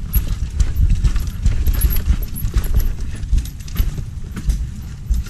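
Mountain bike rolling down a rough, rutted dirt trail, heard from a camera mounted on the bike: a steady low rumble with frequent, irregular rattling knocks as the bike jolts over bumps.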